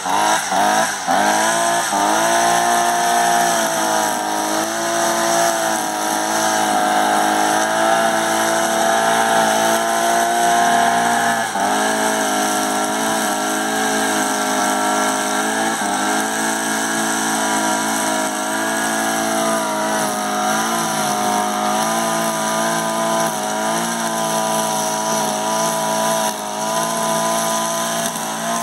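Einhell GE-BC 43 AS petrol brush cutter's two-stroke engine running at high revs while its nylon line cuts grass. The pitch rises and falls with the throttle for the first couple of seconds, then holds steady, with a brief drop about twelve seconds in.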